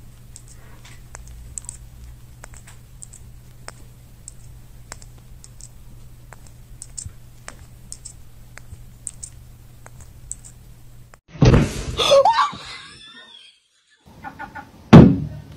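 Faint, irregular light clicks over a low steady hum, then a person screaming loudly about 11 seconds in and again near the end.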